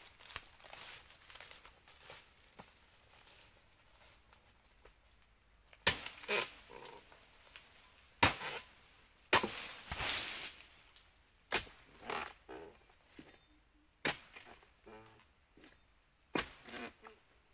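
Steady high-pitched drone of insects. From about six seconds in, a series of sharp chopping strikes comes at irregular intervals, a second or two apart, some followed by a short rustle.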